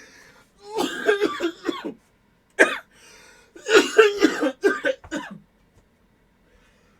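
A man's voice in short non-speech bursts: a bout about a second long, one short sharp burst, then a longer bout, all in the first five seconds.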